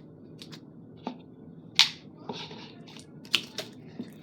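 Clear slime being pressed and squeezed by hand, giving off sharp clicking pops at irregular intervals, the loudest about two seconds in.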